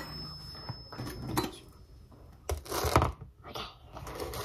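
Indistinct low voice with light handling sounds of a knife and plate on a kitchen counter, in a few short bursts.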